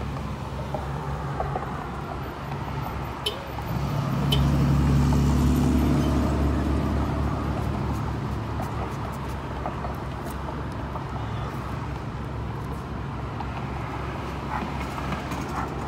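Motor vehicle traffic: a steady low engine rumble that swells about four seconds in as a vehicle goes by, then slowly fades back to a steady hum.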